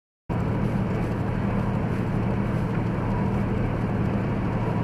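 Vehicle cab noise at highway speed, about 70 mph: a steady low engine drone with road and tyre noise, starting suddenly just after the start.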